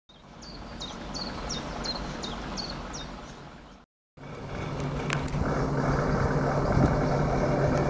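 First a bird chirps over a steady rushing background, about seven quick descending notes. After a short break, the diesel engine of a first-generation diesel multiple unit idles steadily at the platform, with one sharp click about five seconds in.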